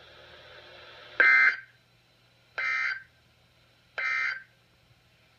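Emergency Alert System end-of-message data bursts from NOAA Weather Radio: three short, raspy digital bursts about 1.4 seconds apart, the first the loudest. They mark the end of the winter storm warning message.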